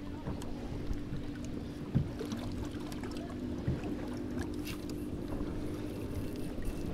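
A boat motor runs steadily at trolling speed with a constant low hum, while a fishing rod and reel being handled give light clicks and knocks, one sharper knock about two seconds in.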